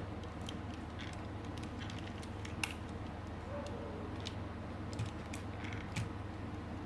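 Scattered light clicks and ticks of small objects being handled, over a steady low hum, with a few sharper clicks standing out.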